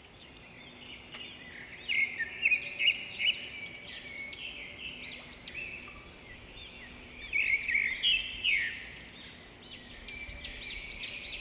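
Many small birds chirping at once, rapid overlapping calls that swell twice, over a faint steady low hum.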